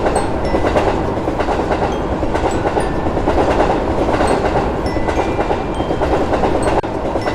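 A train running past: a steady, loud rumble and rush of wheels on the rails, with brief high squeaks scattered through it.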